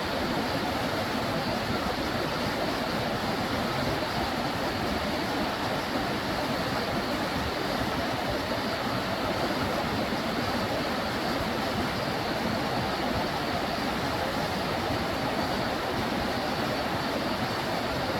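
Steady rushing of a stream's water, an even hiss with no breaks.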